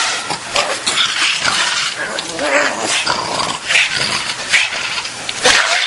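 Pug growling in rough, uneven bursts while being held down for his ear medicine, resisting the handling.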